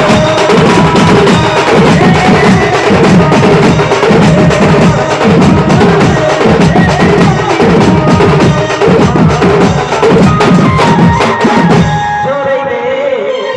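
Devotional music with a busy, steady drum rhythm of repeated low strokes under a melody. Near the end the drums drop out briefly, leaving a quieter held melody line.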